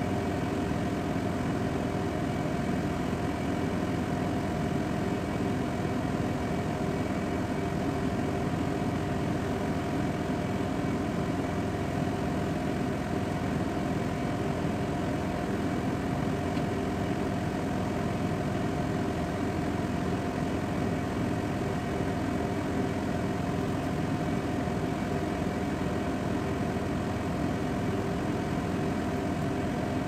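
Steady droning hum of a ship's machinery, heard on deck while the main engine is stopped. Several steady tones run through an even rumble, unchanging throughout.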